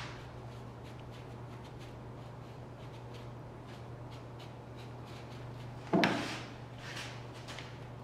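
Hands working a glue-up of a carved wooden panel: light rubbing and small taps over a steady low hum. About six seconds in comes a sharp knock, and a smaller one a second later, as a clamp is picked up and brought to the work.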